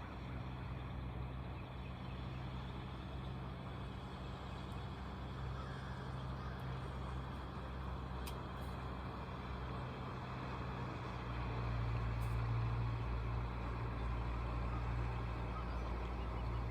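Boat motor running steadily at slow trolling speed, a low hum that grows louder about eleven seconds in, over a steady hiss of wind and water.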